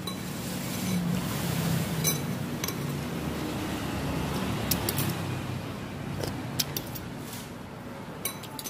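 Steady low hum of a motor vehicle engine, with scattered light clinks of a metal spoon and fork against a ceramic bowl.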